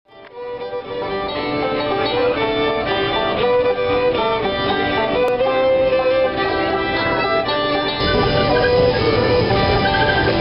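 A fiddle leading a string-band tune over guitar accompaniment, fading in at the start. About eight seconds in, the low rumble of the moving passenger train joins beneath the music.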